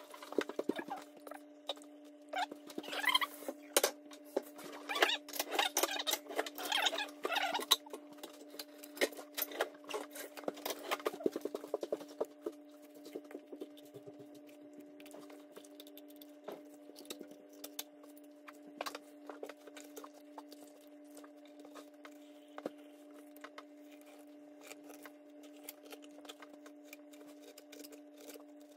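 Knife cutting and scraping through a wolffish's skin and flesh against a plastic cutting board: a run of small crackling clicks and scrapes, dense for the first ten seconds or so and sparser after. A steady low hum sits underneath.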